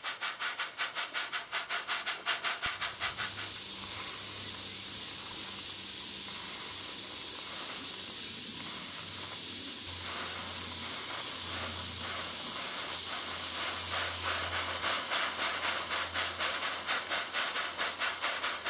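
Southworth horizontal duplex steam pump model running, its exhaust giving rapid, even chuffs over a steady hiss; it sounds like a locomotive. Through the middle the beats blur into a more continuous hiss, and they come back clear near the end.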